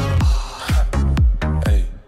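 Electronic dance music with a steady kick-drum beat under sustained synth chords, with a short noisy whoosh about half a second in.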